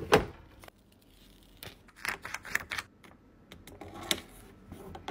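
A roll of plastic garbage bags is set down into a clear plastic bin with a knock, followed by scattered light clicks and rustles of plastic being handled.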